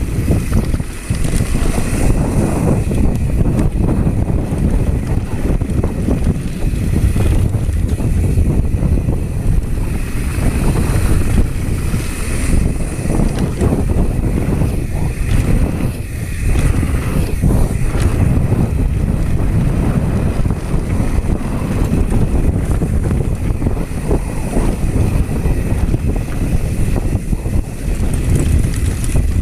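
Wind buffeting an action camera's microphone during a fast mountain-bike descent, over a steady rumble of knobby tyres on a dirt trail and frequent clatters from the bike jolting over bumps.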